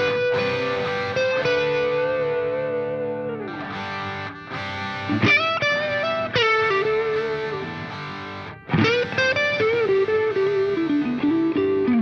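Background music: an instrumental piece whose lead melody plays long held notes that slide and bend in pitch, with a short break in the middle.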